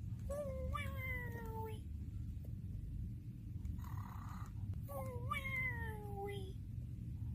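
Cartoon snoring sound effect: two long whistling snores, each sliding down in pitch over about a second and a half, with a short soft hiss between them. A steady low hum runs underneath.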